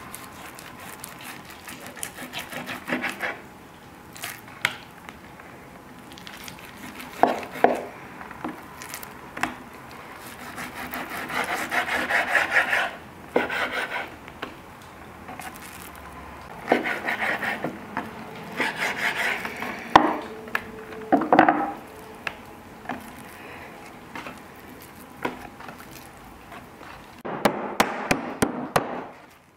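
A large knife slicing raw beef on a wooden cutting board, in irregular sawing strokes with the blade rubbing and knocking on the wood. Near the end a wooden meat mallet starts pounding the slices in rapid strikes.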